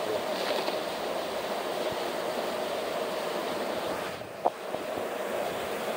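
Steady rush of a rain-swollen creek flowing over rocks, with one brief knock about four and a half seconds in.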